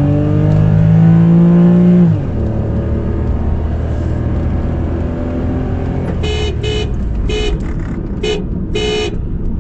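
Car engine heard from inside the cabin, its pitch rising as the car accelerates and then dropping suddenly about two seconds in. After that a car horn is honked in five short toots, the last a little longer.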